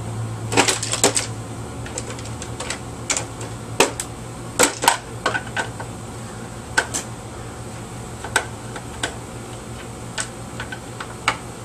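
Irregular clicks and knocks of plastic housing parts and hand tools being handled as a small vacuum cleaner is taken apart for scrap, with a few louder knocks in the first half.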